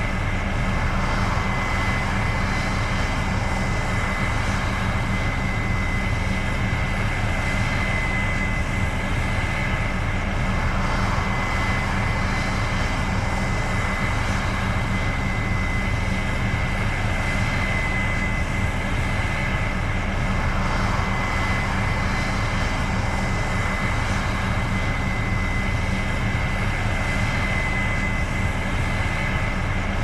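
Case IH 7230 Axial-Flow combine harvesting soybeans, its diesel engine and threshing machinery running steadily under load: a constant low drone with a thin, steady high whine through it.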